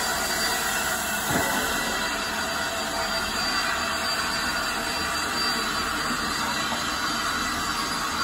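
LNER A3 steam locomotive Flying Scotsman moving slowly past the platform: a steady hiss with a faint high squeal from the wheels, and a single clank about a second and a half in.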